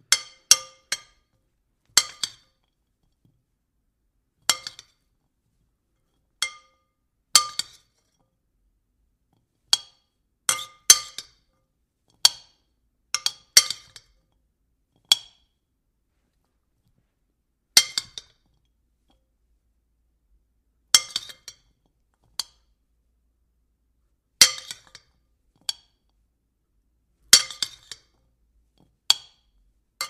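Plates clinking: sharp clinks, each with a short ring, coming singly or in quick runs of two or three at irregular gaps, with silence between.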